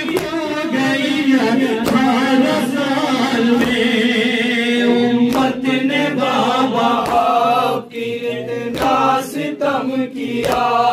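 Men chanting an Urdu noha, a Shia lament, in chorus with one voice amplified through a microphone. Hands slap against chests (matam) at intervals, more often in the second half.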